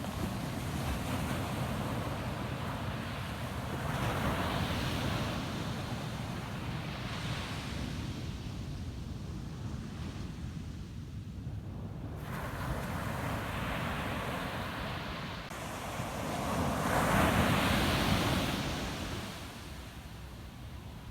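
Ocean waves breaking and washing up a sandy beach, over a steady low rumble of surf. One wave surges in about four seconds in, and a bigger, louder one breaks near the end.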